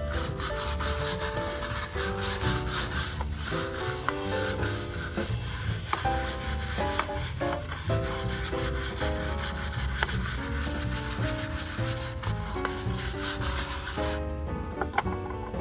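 Background music: a melody of short notes over a steady bass line, with a fast, even, shaker-like rhythm that drops out about 14 seconds in.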